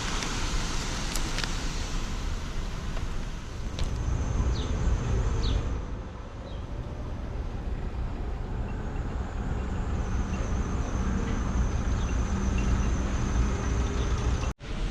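A motor vehicle's engine running with a steady low rumble and a few light clicks, cutting out for an instant near the end.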